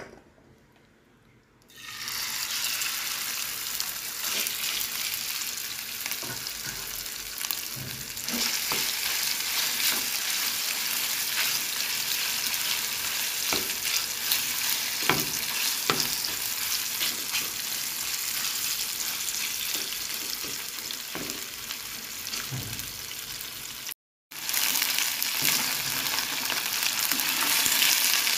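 Chicken pieces sizzling in hot oil in a frying pan, the sizzle starting about two seconds in as they go into the pan and then running on steadily, while a spatula stirs and scrapes them with occasional taps against the pan. A brief break in the sound near the end.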